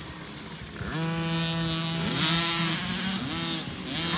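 A small youth motocross bike's engine revving as it is ridden. Quieter for about the first second, then the revs climb and hold high, dip and climb again twice as the rider works the throttle.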